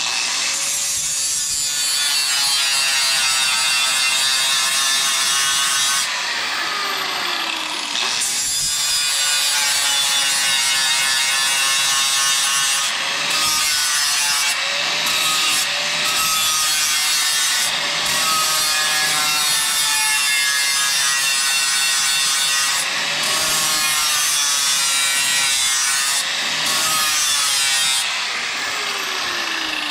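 Milwaukee corded angle grinder with a sanding disc grinding the steel edge of a Craftsman sharpshooter spade to sharpen it. The grinder starts up at the outset and runs steadily, its whine dropping in pitch each time the disc is pressed onto the blade and rising again when it is lifted off, several times over.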